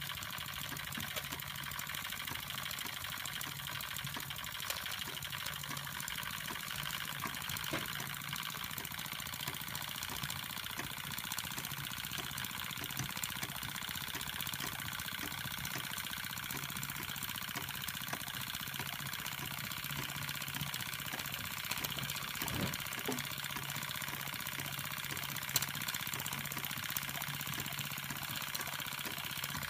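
Doll dual-boiler toy steam engine (model 338/1) running steadily under steam, driving a belt-driven tin accessory, making an even mechanical running noise with a low steady hum.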